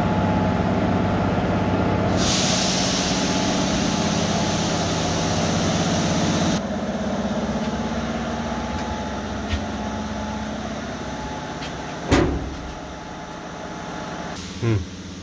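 Steady machinery hum from a standing electric locomotive. A loud hiss of air starts about two seconds in and cuts off suddenly a few seconds later, leaving a quieter hum. A single sharp knock comes near the end.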